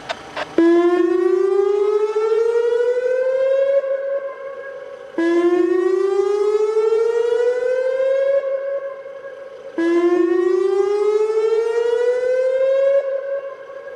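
Whelen WPS-2910 electronic warning siren sounding its whoop signal in a dam-failure warning system test: three rising sweeps, each climbing for about three seconds, holding briefly, then cutting off, repeating about every four and a half seconds. A couple of clicks just before the first sweep.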